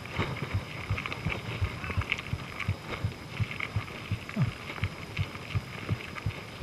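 Gravel bike rolling over rough dirt trail, with irregular dull thumps several times a second and light rattles from the bumps.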